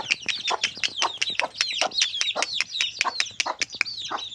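A brood of chicks peeping rapidly and without pause, many short high falling cheeps overlapping, with a hen's lower clucks mixed in.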